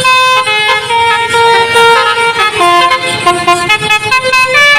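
Basuri telolet bus horn playing a tune: a run of held notes stepping up and down in pitch, several tones sounding together.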